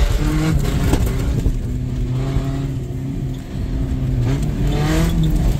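Modified Power Wheels ride-on vehicles racing, their motors running steadily with a couple of short rises in pitch.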